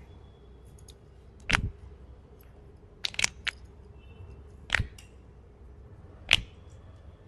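Joints cracking under chiropractic adjustment. There is a loud crack about a second and a half in, a quick run of three cracks in the middle, and two more single cracks later, the loudest with a dull thud as the thrust lands.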